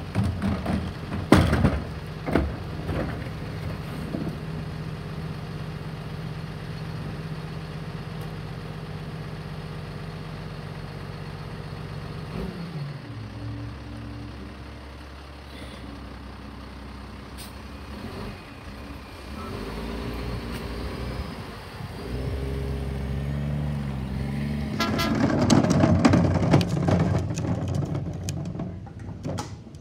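Rear-loader garbage truck's diesel engine running at idle while a cart is knocked empty into the hopper. The engine note then changes and rises and falls as the packer cycles. Near the end comes a loud stretch of clattering and knocking.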